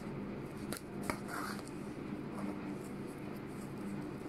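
Faint rustling of felt fabric, ribbon and thread handled by hand as a needle and thread are worked at a ribbon flower, with a couple of sharp little clicks about a second in, over a steady low hum.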